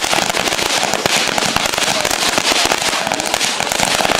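Fireworks crackling: a dense, unbroken run of rapid small pops.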